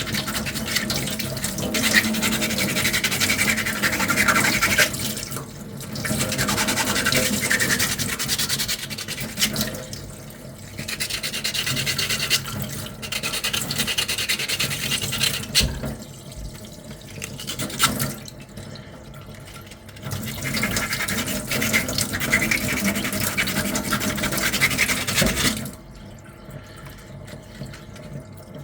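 Hand sanding of a 3D-printed armour piece: sandpaper rubbing back and forth in bouts of several seconds, with brief pauses between them.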